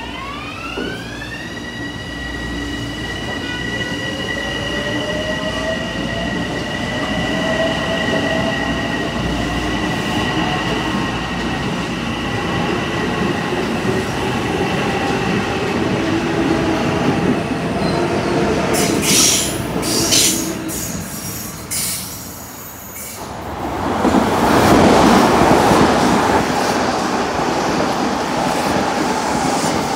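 Metro-North electric multiple-unit train accelerating away: its motor whine rises in pitch over the first couple of seconds, then holds steady as the cars roll by. A few sharp wheel clicks over rail joints come near the middle. Over the last third a louder rushing rumble takes over as an M8 train passes on the adjacent track.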